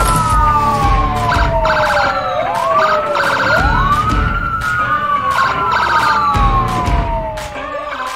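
Emergency-vehicle sirens added as a sound effect, not made by the toy: two overlapping wails that each climb quickly and then fall slowly over two to three seconds, again and again. Upbeat background music with a steady beat plays under them.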